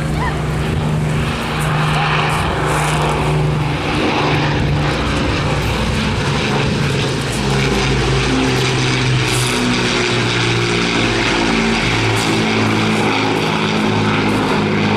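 Avro Lancaster's four Rolls-Royce Merlin V12 piston engines droning loudly in a display pass, the pitch of the drone shifting up and down as it goes.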